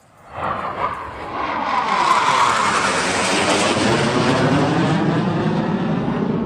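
BAE Hawk jet flying past at low level: its turbofan roar comes in suddenly a moment in, builds, and stays loud, with a shifting, phasing whoosh as it passes.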